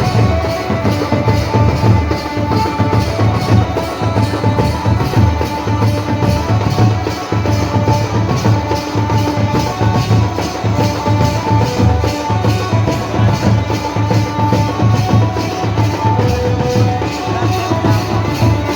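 Village band baja playing a dance tune: drums and a steady, evenly spaced cymbal-and-percussion beat under a melody of held notes.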